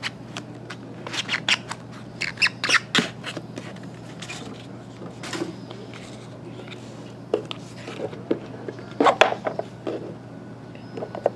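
Crackling, clicking and rustling of a hockey trading card pack being opened and its cards handled. The sounds come in two busy stretches, about a second in and again about nine seconds in, with a few single clicks between, over a steady low hum.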